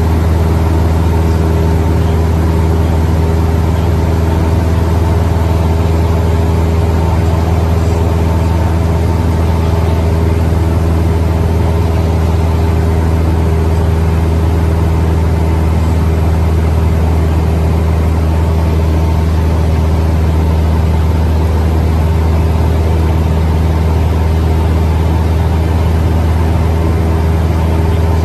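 Single-engine propeller airplane's piston engine and propeller droning steadily in cruise, heard from inside the cockpit as a loud, even low hum.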